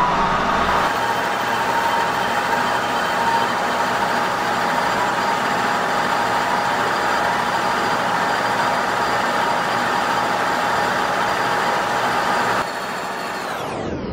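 Kearney & Trecker horizontal milling machine slab milling cast iron with an arbor-mounted helical roughing mill on a slow finishing pass: a steady machine whine over the hiss of the cut. The level drops slightly near the end.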